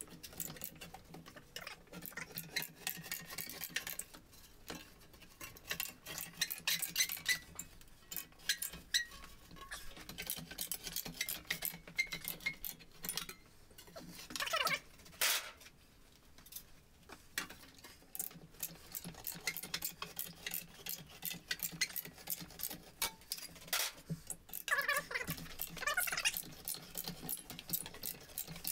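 Sheet-metal shear cutting a blank from 14-gauge steel sheet, giving a long run of irregular metallic clicks, clanks and crunches over a steady low hum. A brief wavering squeal comes near the end.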